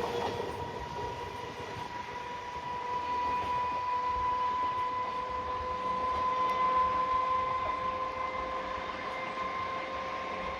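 Indian Railways express train running by, a steady high tone held over the noise of the moving coaches; the sound cuts off abruptly at the end.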